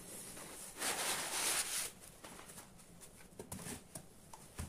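Foam packing rubbing and scraping against a cardboard box as it is pulled out, for about a second, followed by light handling clicks and a thump near the end as the miniature engine's wooden base is set down.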